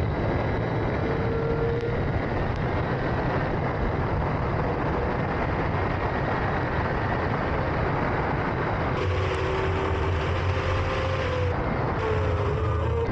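Racing sidecar outfit's engine running continuously at speed, its pitch slowly rising and falling, under a dense, steady rush of noise.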